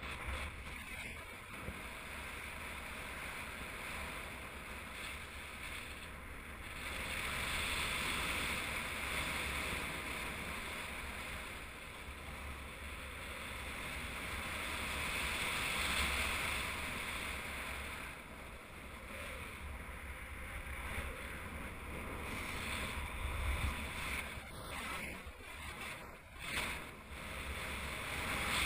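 Wind rushing over the microphone of a paraglider pilot's camera in flight: a steady rush of air that swells and fades several times.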